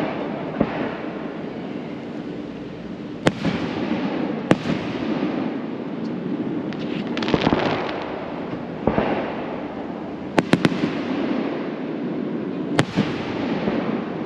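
Aerial fireworks shells bursting overhead: several sharp bangs, including a quick run of three about ten seconds in, with crackling showers of sparks between them.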